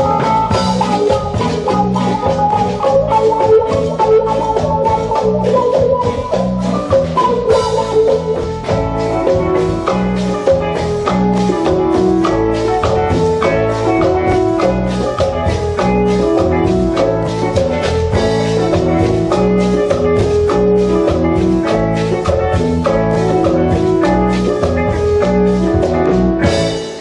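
Live band playing an instrumental with a steady beat, keyboard and drum kit, the melody in bright repeated notes; the music stops abruptly near the end.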